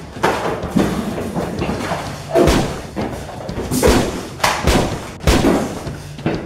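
Punches and blows landing in a staged scuffle: about eight sharp thuds and smacks at uneven intervals, some followed by a short ring.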